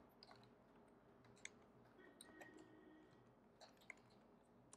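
Faint, scattered clicks of keys being typed on a computer keyboard, over near silence.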